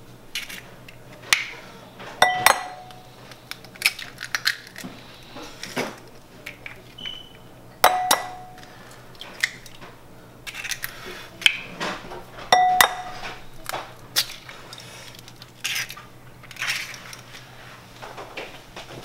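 Raw eggs cracked one after another against a glass mixing bowl: three sharp raps, about five seconds apart, each making the glass ring briefly, with small clicks and crackling of shell between them.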